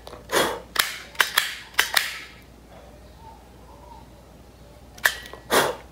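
A lighter being struck several times: sharp clicks and short rasps in quick succession, a pause, then two more strikes near the end.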